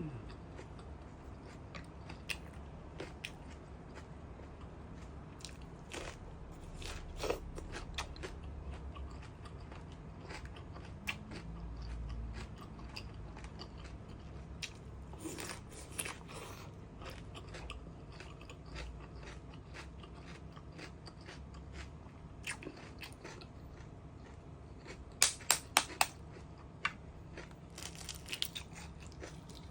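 A person chewing and biting food close to the microphone, with scattered wet clicks and crunches. Near the end comes a quick run of four sharp, louder clicks.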